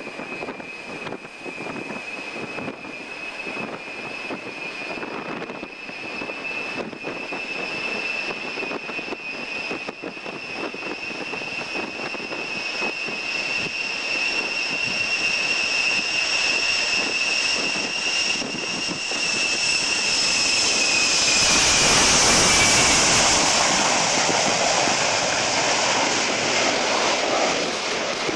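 Ilyushin Il-76's four Soloviev D-30KP turbofans whining as the jet taxis, two high whine tones rising slightly while the engine noise grows louder. About 21 seconds in the whine drops away and a louder rush of jet exhaust takes over as the tail swings toward the listener.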